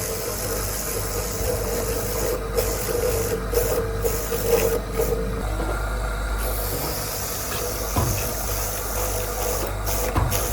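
A steady machine hum with a steady tone over it that stops about halfway through, and a few light clicks.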